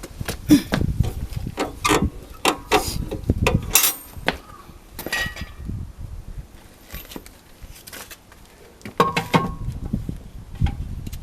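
Irregular metal clinks, clicks and knocks of hand tools at work on a car wheel during a tyre change, with a short ringing metallic clink about five seconds in and again near nine seconds.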